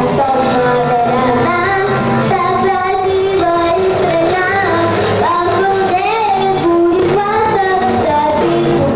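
A young girl singing a pop song with instrumental accompaniment.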